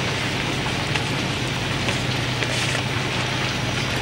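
Steady rain hissing, with scattered drops ticking, over the low steady hum of a car engine idling.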